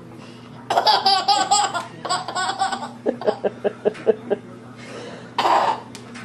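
Baby laughing in several bouts: two longer, wavering laughs, then a quick run of about eight short chuckles, and one more short laugh near the end.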